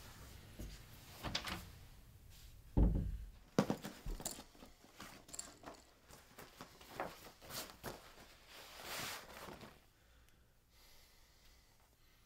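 Quiet handling sounds of a suitcase being packed: a heavy thump about three seconds in, a sharp click just after, then scattered knocks and the rustle of clothing and a shopping bag, dying down near the end.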